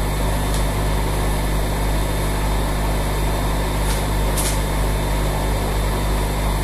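Hot-air rework station blowing steadily through its nozzle onto a phone's CPU chip to melt the solder, a constant fan hum and rush of air, with a few faint high ticks.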